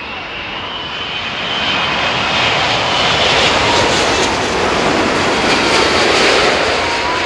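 Airbus A380 jet airliner on landing approach passing low overhead, the noise of its four jet engines building over the first few seconds to a loud peak in the second half, with a high whine on top.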